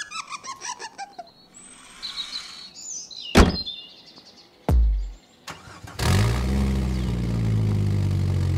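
Cartoon sound effects: a quick run of clinks falling in pitch, a sharp knock, and a low thud, then a sports car engine starts about six seconds in and runs steadily.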